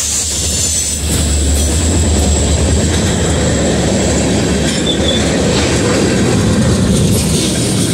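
Freight train rolling past close by: a steady rumble of tank cars and hoppers on the rails with some wheel clatter. A deeper diesel rumble from the trailing locomotive fades over the first few seconds.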